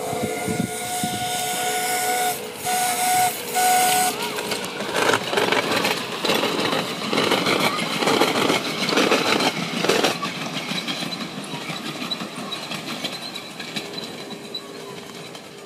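Miniature railway locomotive's whistle sounding three times, one long blast then two short ones, followed by the train clattering past on the track and fading away.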